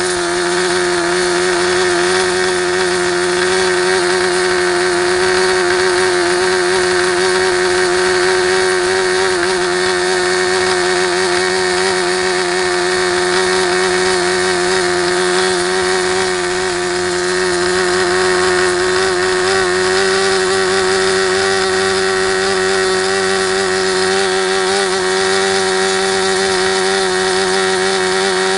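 SuperTigre G51 two-stroke glow engine running at high throttle on a test stand, spinning a 10x6 propeller: a loud, steady high-pitched buzz that wavers slightly. The freshly rebuilt engine is still being broken in, its needle not yet leaned to peak.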